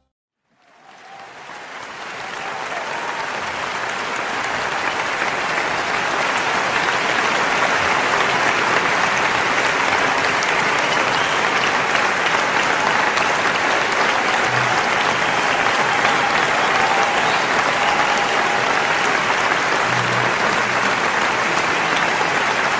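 Crowd applause, fading in over the first few seconds and then holding steady.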